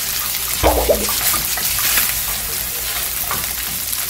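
Kimchi fried rice sizzling in a frying pan on a portable gas stove as rice is tipped in and stirred with a spatula, with a brief louder bump and scrape a little under a second in.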